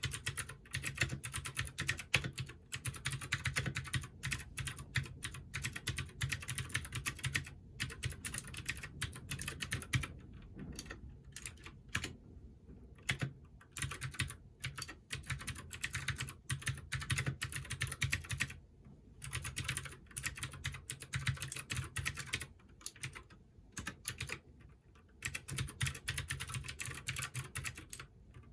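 Typing on a Keychron K6 mechanical keyboard with Gateron Blue clicky switches: a fast, loud run of sharp keystroke clicks with a couple of short pauses.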